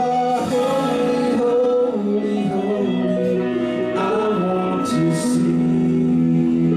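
Live band playing a song: electric guitars, electric bass and drums, with a man singing.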